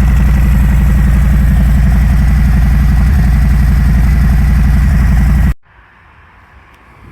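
Harley-Davidson Fat Bob's Milwaukee-Eight 114 V-twin idling steadily through Jekyll and Hyde mufflers, with a loud, low, even exhaust beat. The sound cuts off suddenly about five and a half seconds in, leaving only faint wind-like noise.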